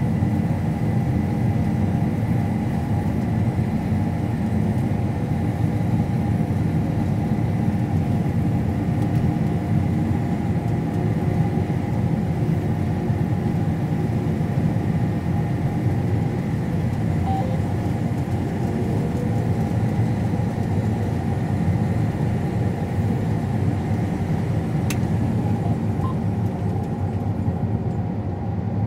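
Combine harvester running steadily while cutting, a constant low drone with a steady whine over it.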